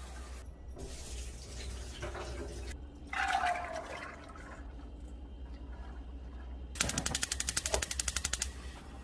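Soaked black soybeans and water tipped from a bowl into a stainless steel frying pan, a loud splash and rattle about three seconds in. Near the end a gas stove's electric igniter clicks rapidly for about a second and a half.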